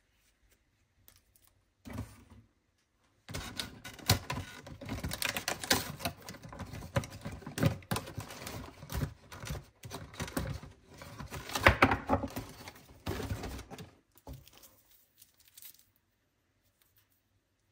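A cardboard advent calendar door being pried and torn open by hand: a short rustle, then rapid crackling, ripping and tapping from about three seconds in that stops about fourteen seconds in, leaving only a few faint ticks of handling.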